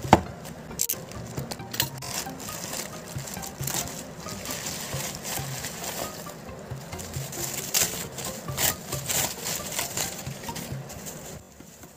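Plastic mailer bag and bubble wrap crinkling and rustling as they are handled and pulled open, with many sharp crackles.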